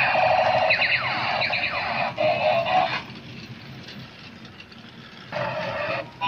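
Electronic sound effects from a battery toy through its small speaker: a quick run of falling tones repeated over the first three seconds, then a quieter stretch of faint whirring, and a loud burst of electronic sound again about five seconds in.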